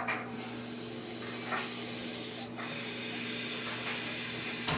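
Steady hiss over a faint low electrical hum: room tone, with a small rustle about a second and a half in and the hiss growing slightly louder toward the end.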